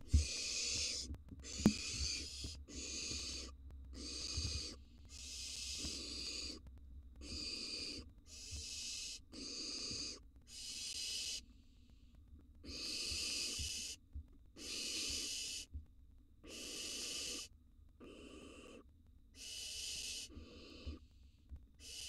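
Barn owl nestlings giving their rasping, hissing begging calls, repeated about once a second with short pauses. A sharp click sounds about two seconds in.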